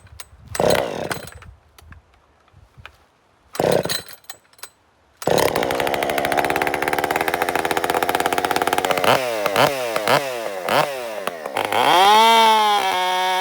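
Two-stroke chainsaw being started: two short rasping pulls of the starter cord, then the engine catches about five seconds in and runs at a fast idle. It is blipped about four times, then revved up and held at high speed near the end.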